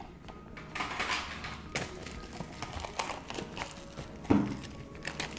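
Cellophane shrink-wrap being torn and peeled off a plastic Blu-ray case: crinkling with scattered clicks and taps, and a louder knock a little over four seconds in.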